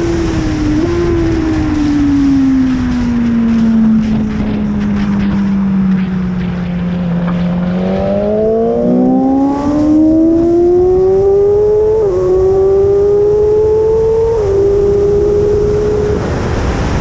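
BMW S1000RR's inline-four engine at racing speed: the engine note falls as the bike slows into a corner, with a short downshift blip about a second in. It then rises steadily as the bike accelerates out, dropping back briefly at two upshifts in the second half, over steady wind noise.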